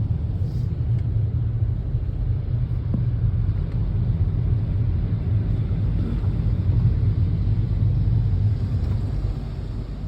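Steady low rumble of a car on the move, road and engine noise with no distinct events.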